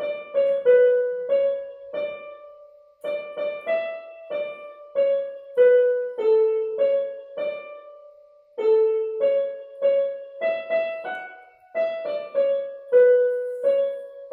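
A simple melody played one note at a time on a keyboard instrument with a piano sound, in three short phrases with brief breaks between them.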